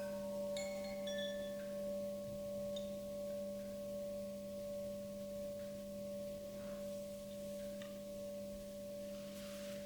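A Tibetan singing bowl sustaining a steady ringing tone, a low hum with a higher overtone above it, slowly fading. A few light, high chime notes ring out in the first couple of seconds.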